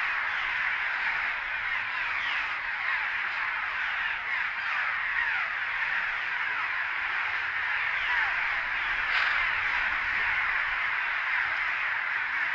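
A colony of cliff swallows calling all at once: a dense, unbroken chorus of many short, downslurred calls overlapping. The birds are stirred up by the disturbance at their nests.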